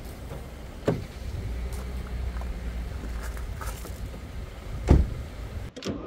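A car running with a steady low rumble, broken by a couple of sharp knocks, the loudest near the end.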